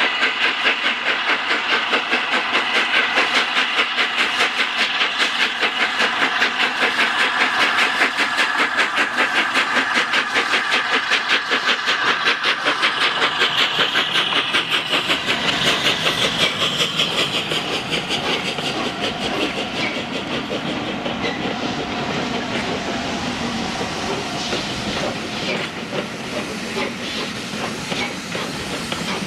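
Steam locomotive chuffing with rapid, even exhaust beats and a steady hiss as a steam-hauled train gets under way. The beats soften and blur about two-thirds of the way through.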